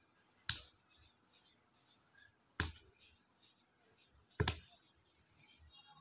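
Luban buckle latch on a metal-frame phone case clicking sharply three times, about two seconds apart, as it is worked open and shut by hand.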